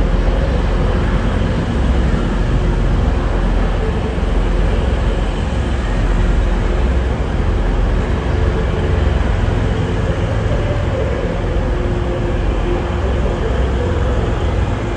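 TransPennine Express Class 185 diesel multiple unit moving slowly through the station, its engines giving a steady low rumble with a faint hum, under an arched trainshed roof.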